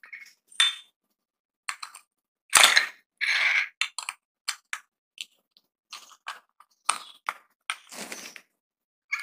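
Light bulbs being fitted by hand into plastic bulb holders: a string of clicks, clinks and short scrapes, loudest about two and a half to three and a half seconds in.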